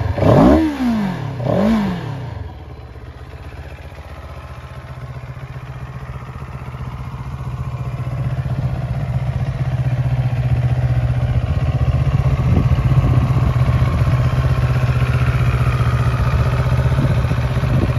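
CFMoto 700CL-X Sport's 693 cc liquid-cooled parallel-twin engine blipped twice on the throttle, revs rising and falling quickly, then idling steadily with its note growing louder over several seconds.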